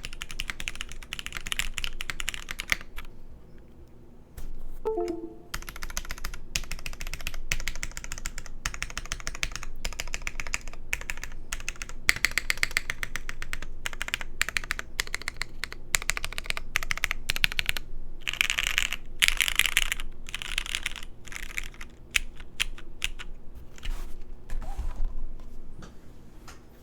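Typing on a custom mechanical keyboard with linear retooled Cherry MX Black switches lubed with Krytox 205g0, an aluminium plate and GMK keycaps: keys clacking in quick, dense runs, with a short lull about three seconds in.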